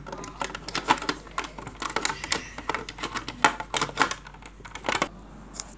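Small plastic toy figures being handled, clicking and tapping irregularly against each other and a hard surface, with several sharper clacks.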